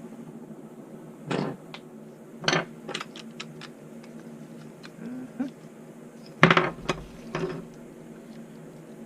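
Hard plastic and metal parts of a livestock water-trough de-icer being handled and fitted together: scattered clicks and knocks, the loudest about six and a half seconds in, over a steady low hum.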